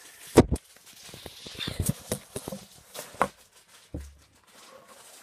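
Handling noise of a phone being moved about and bumped: an irregular string of knocks, scrapes and rustles, the loudest knock about half a second in.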